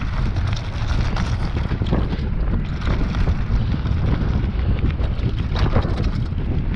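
Mountain bike ridden fast over a loose gravel trail: heavy wind rumble on the microphone, with tyres crunching and many short rattling clicks from the stones and the bike.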